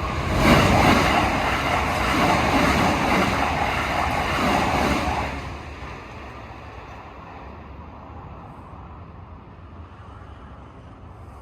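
A vehicle passing close by: a loud rushing noise for about five seconds that then falls away to a low, steady background rumble.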